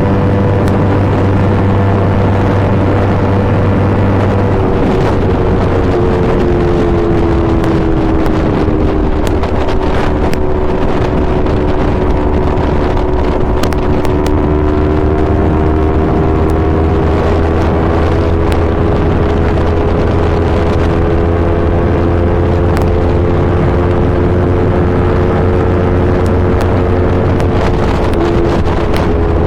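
Yamaha R3's parallel-twin engine running through an Akrapovic full exhaust system at a fairly steady engine speed. Its note sinks slightly about five to nine seconds in, then creeps slowly back up.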